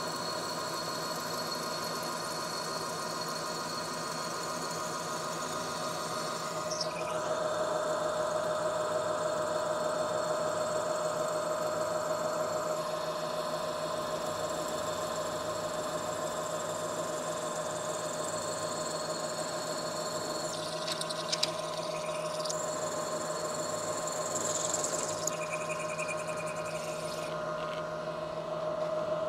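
Milling machine spindle running with a steady whine while a 3/8-inch twist drill is fed into a vise body casting, drilling pilot holes. The sound grows louder about seven seconds in.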